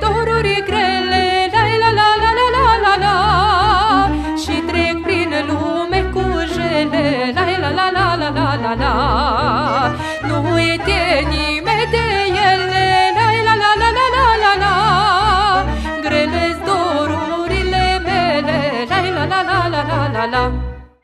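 Romanian folk party music: a lead melody with wide vibrato over a steady pulsing bass beat. It stops suddenly near the end.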